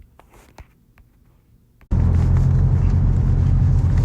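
Quiet for about two seconds with a few faint clicks, then a sudden cut to the loud, steady rumble of a charter fishing boat's engine running, with wind and water noise over it.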